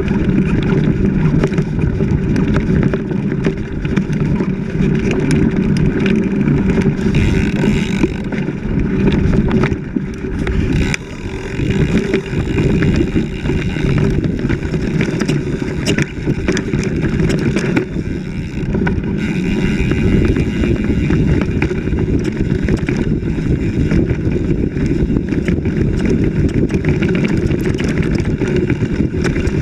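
Off-road vehicle engine running steadily under way over a rough dirt track, with many short knocks and rattles from the bumpy ground.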